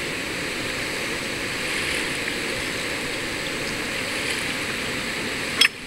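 Fast-flowing river rushing steadily, with a single sharp click near the end after which the rushing drops away.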